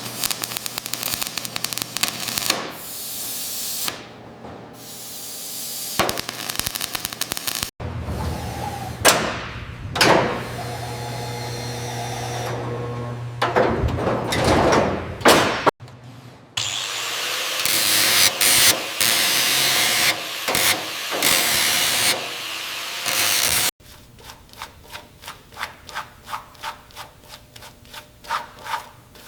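Workshop tool sounds in four short segments with hard cuts between them: a run of rapid clicks, then a power tool running with a steady hum, then a harsh continuous hissing grind, then evenly spaced ticks about two a second.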